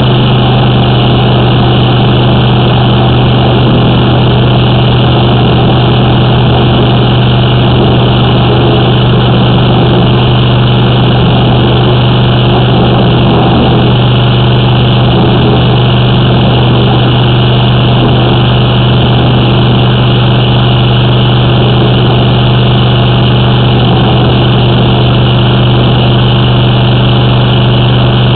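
A high-pressure drain jetter's engine and pump running at a steady pitch: a loud, even drone with a strong low hum.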